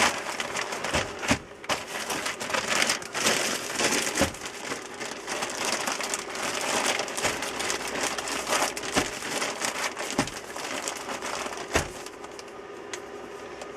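Hands rummaging and handling things: crinkling and rustling with scattered clicks and knocks, quieter over the last couple of seconds.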